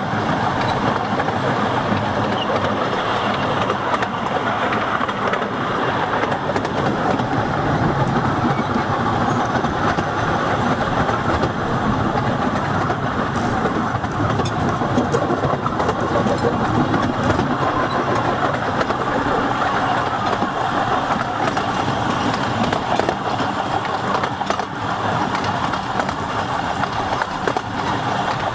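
Narrow-gauge railway coach running along the track: a steady rumble and rattle of wheels on rails, heard from on board the moving train.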